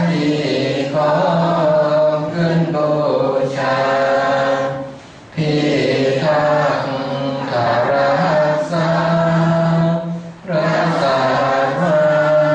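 Group of Thai lay Buddhist men and women chanting Pali verses in unison in sarabhanya style, a melodic recitation in long held phrases. The chant breaks off briefly twice, about five and ten seconds in, before the next phrase.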